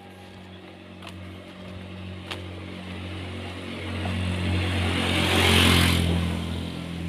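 A motor vehicle passes close by, its noise swelling to a peak about five and a half seconds in and then fading, over a steady low hum.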